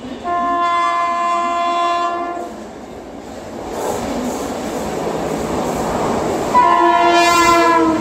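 WAP-7 electric locomotive sounding its air horn twice as it approaches at speed. First comes a steady blast of about two seconds. The train's running noise then rises, and a louder second blast starts about six and a half seconds in as the train passes close by.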